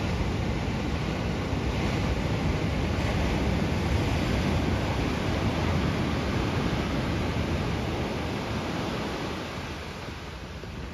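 Small ocean waves breaking and washing ashore, a steady rushing noise with wind rumbling on the microphone, easing a little near the end.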